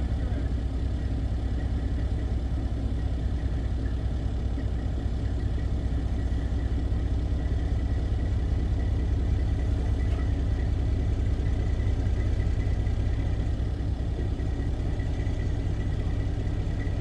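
Heavy vehicle engine running steadily at a low idle-like rumble, with a faint thin high whine coming in about halfway through.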